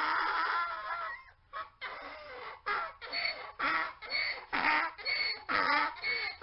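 Mule braying: a long drawn-out note that trails off about a second in, then a quick run of short, rising-and-falling cries.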